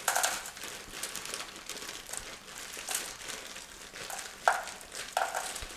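Plastic food packaging crinkling and rustling irregularly as potato pieces are handled and weighed out on a kitchen scale, with one sharp click about four and a half seconds in.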